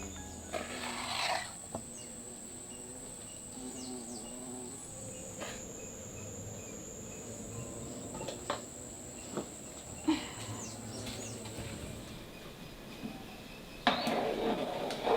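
Steady high-pitched insect drone with scattered clicks and knocks. Near the end a louder rough rubbing or scraping sound begins.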